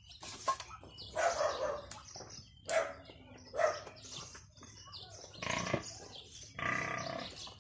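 Several short animal calls, the longest near the end, mixed with rustling as things are rummaged through in a bag.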